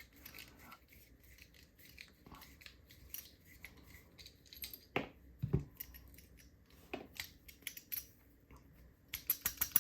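Small metallic clicks and scrapes from a padlock being taken apart by hand with small tools. There is a sharper click about five seconds in and a quick run of clicks near the end.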